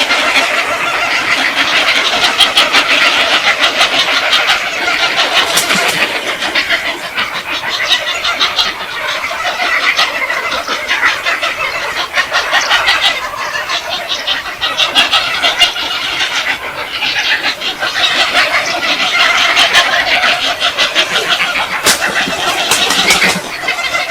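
Many birds calling at once, a loud harsh chattering din that keeps up without a break.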